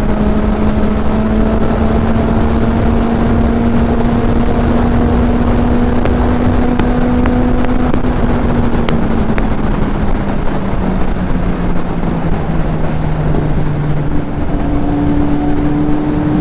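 Kawasaki Z800 inline-four engine at highway cruising speed, its steady note creeping up slightly, falling lower about ten seconds in, then stepping up higher near the end. Heavy wind buffeting on the helmet-mounted microphone.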